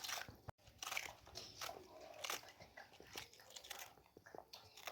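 Faint, irregular crunching and clicking of crunchy food being bitten and chewed.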